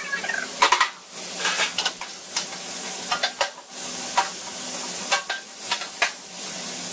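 Sliced onions sizzling in hot lardon fat in a large stainless-steel tilting pan. A long paddle stirs them, scraping and knocking against the metal pan at irregular intervals.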